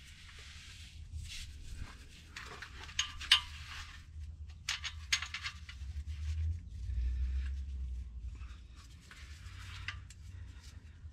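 Scattered metallic clinks and scrapes of a replacement starter's top mounting bolt and hand tools being worked into place, with a few sharper clicks around the middle.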